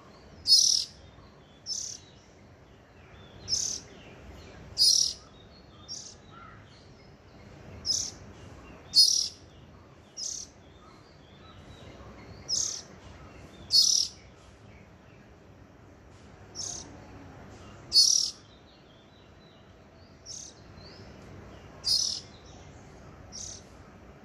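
Small bird calling with short, high chirps, repeated about every second or so, some loud and some softer.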